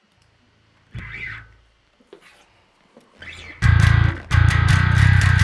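Electric bass guitar played through the recording setup to check its sound, which had just been clipping. It gives two single plucked notes about a second and three seconds in, then loud, sustained notes struck over and over, with a short break just past four seconds.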